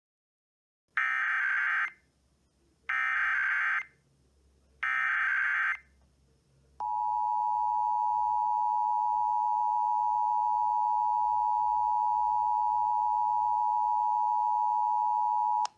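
Emergency Alert System header: three short bursts of SAME digital data screech, about a second each, followed by the two-tone EAS attention signal held steady for about nine seconds and cutting off sharply. It marks the start of a statewide EAS test broadcast.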